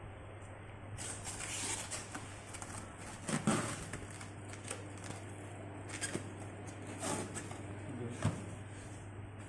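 Plastic stretch wrap and cardboard rustling and crinkling in irregular bursts as a wrapped machine is packed and handled, the loudest burst a few seconds in. A low steady hum runs underneath.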